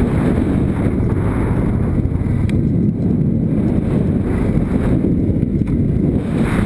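Wind buffeting the microphone of a handlebar-mounted action camera on a moving motorcycle, a steady low rumble with the bike's engine running underneath.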